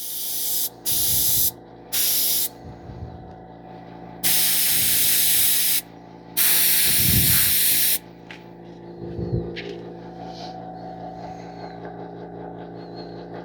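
Airbrush spraying in bursts of hissing air: three short bursts, then two longer ones of about a second and a half, test-firing after the compressor has been plugged back in. A steady hum runs underneath.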